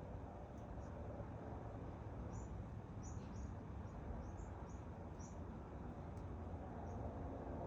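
Small birds giving short, high chirps, a quick run of them in the middle, over a steady low background hum. The chirps are alarm calls set off by a rat chasing the birds.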